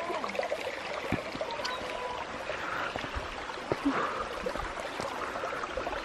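Shallow stream flowing over rocks, a steady rushing trickle, with a few scattered knocks.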